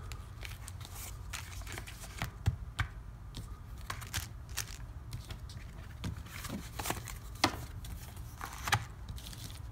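Clear plastic bags of wooden game tokens crinkling as they are handled and packed into a cardboard game box, with scattered light clicks and taps from the tokens and cards.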